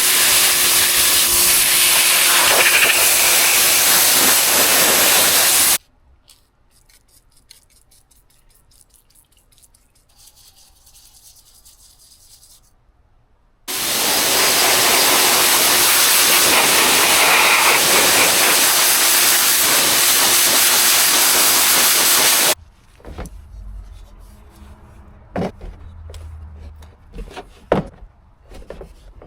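Two long bursts of steady hissing spray on a two-stroke exhaust chamber during paint stripping. The first lasts about six seconds. The second starts about fourteen seconds in and runs about nine seconds. Between and after the bursts there is quiet handling noise with a few small knocks near the end.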